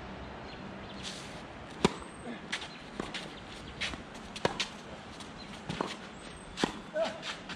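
Tennis rally: racket strikes on the ball about two to three seconds apart, the loudest near the end, with fainter ball bounces and footsteps on the court in between.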